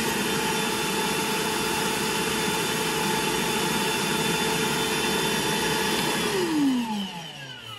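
Milwaukee M18 FUEL Packout wet/dry vacuum's brushless motor running on its high speed setting with a steady whine. About six and a half seconds in it is switched off and its pitch falls as it winds down.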